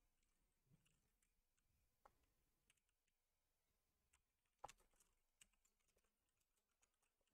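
Faint, scattered keystrokes on a computer keyboard, with one sharper click a little after halfway through.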